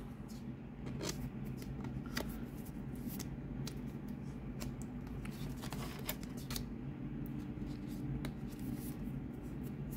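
Pokémon trading cards and plastic card sleeves handled by hand: scattered light clicks and rustles of card stock and sleeve plastic, over a steady low hum.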